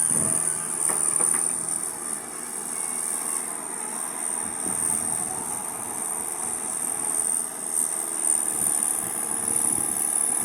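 Excavator's diesel engine running steadily, with a steady high-pitched whine over it.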